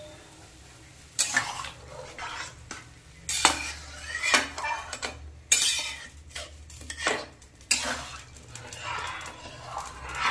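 A long metal spatula scraping and clanking against a large kadai while rice is stirred in water, with sharp clanks at irregular intervals and scraping between them.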